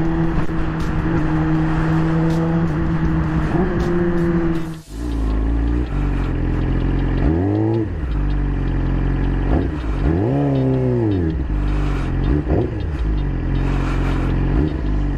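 2020 Yamaha R6 inline-four with an Akrapovic full exhaust, running at a steady engine speed under wind noise while cruising, then switching abruptly about five seconds in to a low idle with three throttle blips that rise and fall in pitch.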